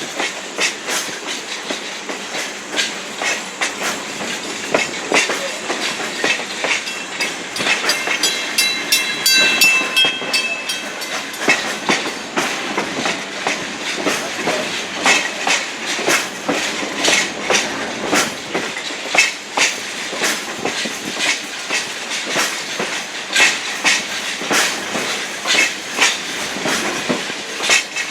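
Passenger coach wheels clicking over rail joints as the train rolls along, heard from on board with a steady running rumble. A brief high-pitched tone rings out about nine seconds in.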